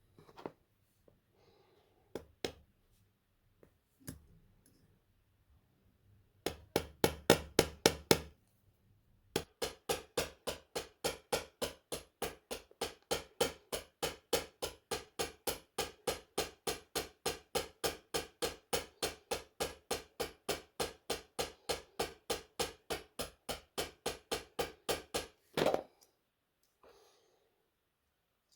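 Light hammer taps on a small metal workpiece: a few scattered clicks, a quick flurry of taps, then a long, even run of about three to four taps a second that stops about 25 seconds in with one louder knock.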